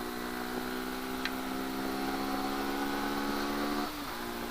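Motorcycle engine running under way, a steady note that creeps slightly up in pitch and then drops away about four seconds in.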